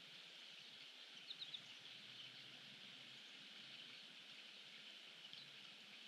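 Faint, steady outdoor hiss with a few short, high bird chirps: three in quick succession about a second and a half in, and one more near the end.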